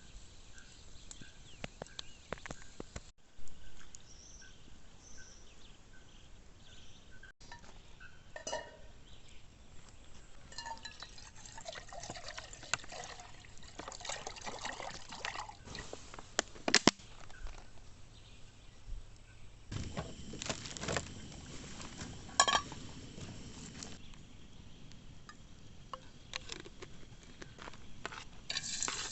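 Liquid pouring and trickling, with scattered clicks and knocks.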